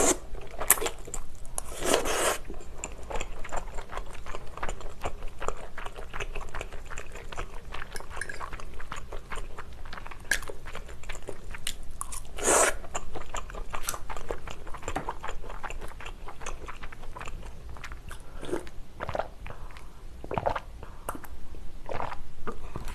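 Close-miked eating of spaghetti and Chinese glass noodles in basil pesto: wet chewing with many small irregular clicks. Two louder, longer sounds come about two seconds in and about twelve seconds in, as noodles are drawn in from the fork.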